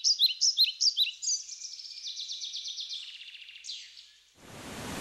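A songbird singing: quick repeated rising chirps, then a buzzy trill and a falling note. Near the end the birdsong cuts off and a steady rushing noise starts abruptly.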